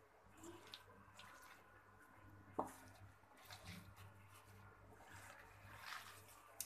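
Faint squishing and rustling of shredded cabbage being kneaded by hand with gram flour and spices in a steel bowl, with one sharp tap about two and a half seconds in.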